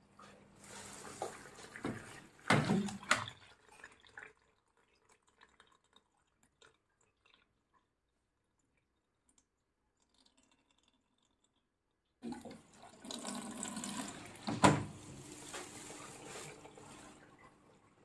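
Water running in a Manfield washer-dryer while its fill and drain are tested. It comes in two spells with a near-silent pause of several seconds between them. A few sharp knocks sound in the first spell and one loud knock in the second.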